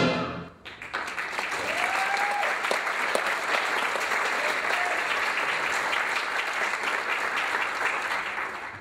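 Audience applauding in a theatre as the last of the orchestral music dies away; the clapping starts under a second in, holds steady and fades out near the end.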